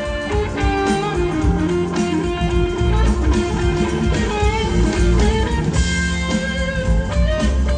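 Live rock band playing, an electric guitar out front over drums, bass and keyboards, heard through a festival PA.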